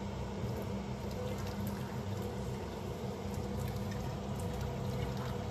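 Hot cooking water pouring in a thin stream from a steel pot into a stainless steel sink, a steady splashing trickle as boiled balut eggs are drained, over a low steady hum.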